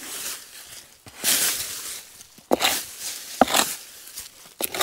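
Stiff brush sweeping soil and debris off a buried concrete grave slab, in separate rasping strokes about once a second.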